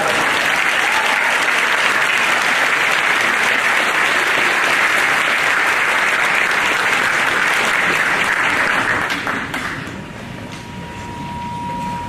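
Concert audience applauding steadily, the clapping dying away about nine to ten seconds in. A faint, thin steady tone can be heard after it fades.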